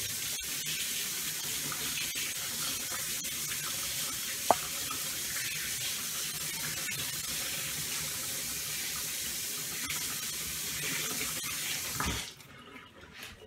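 Kitchen tap running into the sink while hands are washed under it, shut off about twelve seconds in. A single sharp click about four and a half seconds in.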